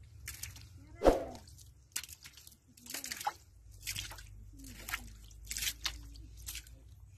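Wet mud squelching as a hand digs into a waterlogged hole, in a string of separate squishes about once a second; the loudest, a heavier slap, comes about a second in.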